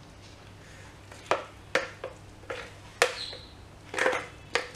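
A spoon knocking and scraping against a plastic chopper container and a bowl while thick ground chicken paste is emptied out: about five short, sharp knocks spread over a few seconds.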